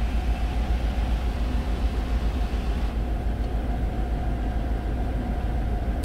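Chevy Silverado 1500 engine idling cold, heard from inside the cab as a steady low rumble, with a misfire on cylinder number 5. Over it, air rushes from the HVAC blower vents, easing off about halfway through.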